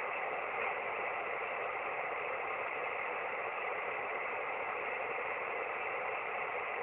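Shortwave receiver hiss on the 17-metre amateur band in single-sideband mode: steady band noise with no signal on the frequency, while the DX station listens up for callers.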